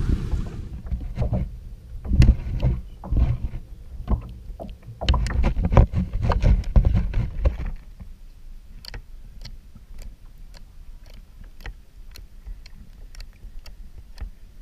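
Blue cloud slime being stretched and squeezed by hand, with dense crackling pops and squelches. About eight seconds in it drops to quieter, separate sharp sticky clicks as fingers poke the slime in a bowl.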